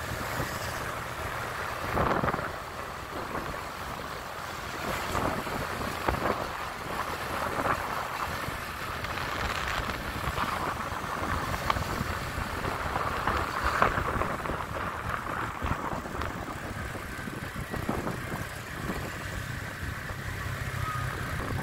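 Motorbike engine running at steady riding speed, heard from on board, with gusts of wind buffeting the microphone and passing traffic.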